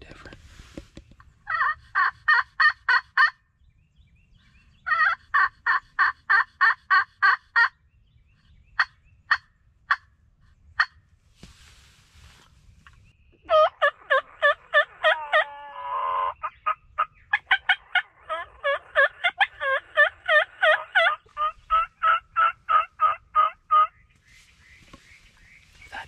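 Turkeys calling: runs of rapid yelps at about five notes a second, some scattered single notes, then a long, loud run with a gobble rattling out in its middle.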